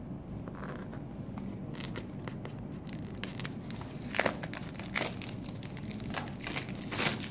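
Phone retail packaging being opened by hand: crinkling and tearing of the wrapping, with scattered crackles and a couple of sharper rips, about four seconds in and near the end.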